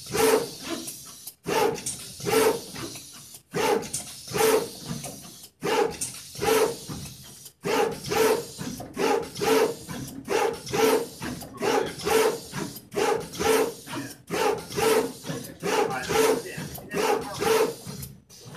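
SMT460 pick-and-place machine running, its four-nozzle placement head shuttling in quick rhythmic strokes of about two a second, each with a motor whir and a hiss. The rhythm has a few short breaks near the start and stops near the end.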